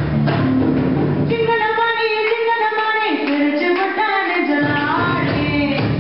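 Dance song with a steady beat; about a second in, the drums and bass drop out and a female voice sings on alone for about three seconds, then the beat comes back.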